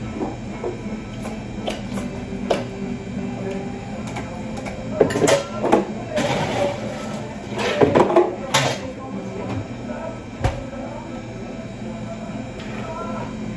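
Coffee-shop work sounds behind the counter: a steady machine hum with scattered clicks, knocks and clatter, busiest about five and eight seconds in, and a brief hiss about six seconds in.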